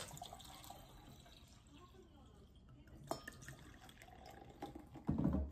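Bottled beer poured into a glass tumbler: a faint trickle and fizz of liquid filling the glass, with a short click about three seconds in and a louder, low sound near the end.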